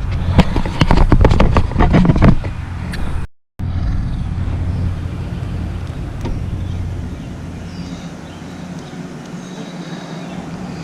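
Clicking and rattling from handling small parts and tools for about two seconds, then, after a brief cut, a steady low engine-like hum with faint ticks.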